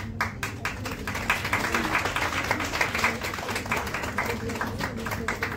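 Audience applauding: dense clapping that starts at once, is fullest in the middle and thins out near the end.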